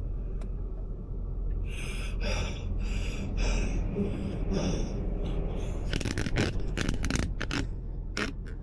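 Steady low rumble inside the cab of an old Ford F350 crawling along a snowy road, with breathy sounds and a run of short scraping clicks about six to seven seconds in.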